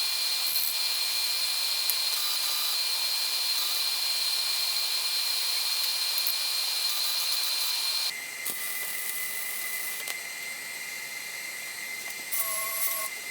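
Flux-core wire-feed welding arc, a steady sputtering hiss with a thin high whine, welding shut worn, oblong mounting holes on a steel plow. About eight seconds in the sound drops in level and the whine shifts lower.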